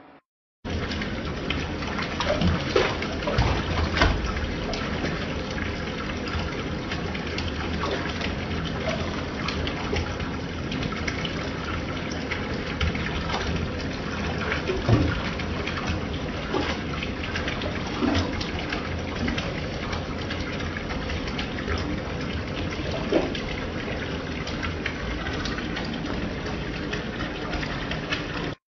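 Bathtub tap running, water pouring steadily into the tub. A few short, louder knocks or splashes stand out from it.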